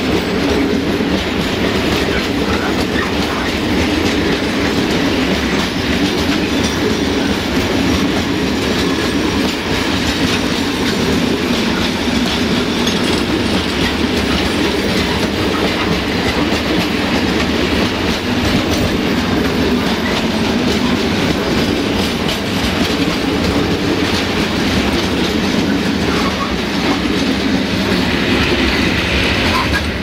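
Long freight train of covered hopper wagons rolling past: a steady rumble with the clickety-clack of wheels over rail joints.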